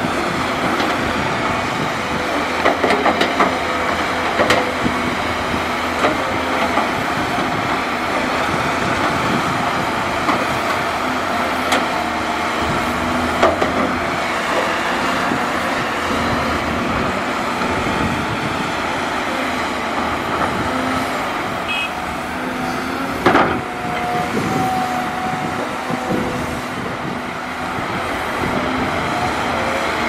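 Caterpillar 320D hydraulic excavator working: its diesel engine and hydraulics run steadily as the bucket digs and lifts soil and rock. A few sharp clanks come through, the loudest about three-quarters of the way through.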